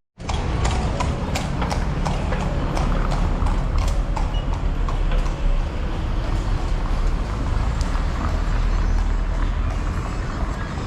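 Street ambience: a steady low rumble with many sharp clacks throughout.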